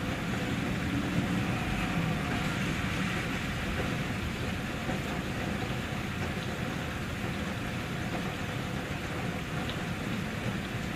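Steady rain falling: a continuous, even hiss with a deep low rumble underneath.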